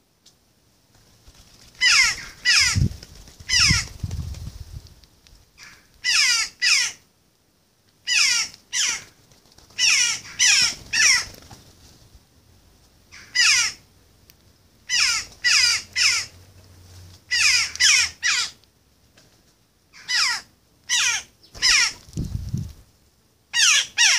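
Jackdaw calling repeatedly: short, harsh, downward-falling calls, mostly in twos and threes every couple of seconds. Low rumbles come twice, a few seconds in and near the end.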